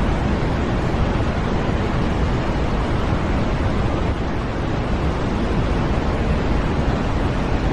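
Steady electronically generated white noise: an even, unchanging hiss with no rhythm or breaks.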